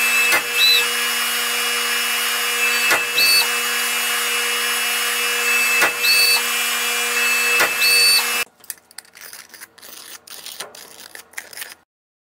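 A powered punch press running steadily while a Unipunch punch-and-die unit punches aluminum sheet. Four sharp clacks come a few seconds apart, each with a brief high squeal. The machine cuts off suddenly about eight seconds in, leaving faint scattered clicks.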